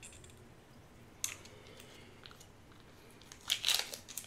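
Small plastic dipping-sauce cups being opened by hand. There is a sharp snap about a second in, then a short burst of crinkly crackling as a lid is peeled back near the end.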